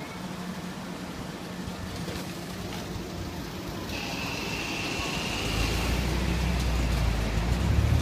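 Steady hum of air-conditioner condenser fans over street traffic noise, with a thin high whine for a couple of seconds about halfway through. From about five seconds in, a motor vehicle's low engine rumble grows louder and takes over.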